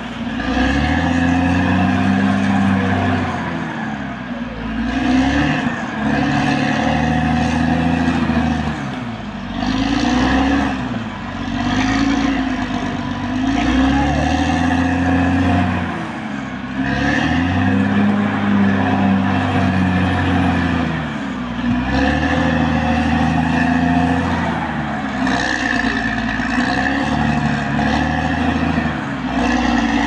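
Caterpillar D6R XL bulldozer's diesel engine running hard. Its pitch sags and climbs back again and again every few seconds, as the load on it changes.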